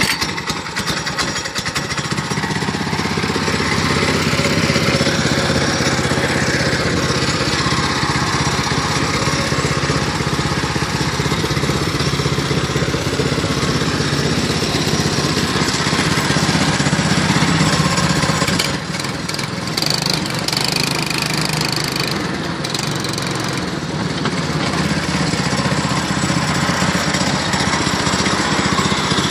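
Small 7 hp Princess Auto single-cylinder four-stroke engine in a snowmobile, pull-started on its recoil rope: it catches at once and runs steadily, its speed easing up and down a little, with a slight drop in loudness about two-thirds of the way through.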